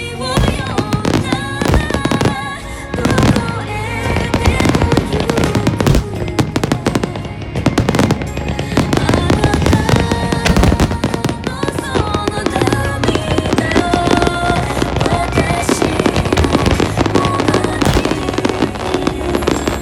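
Fireworks bursting in rapid, overlapping succession during a grand-finale barrage, with music playing along.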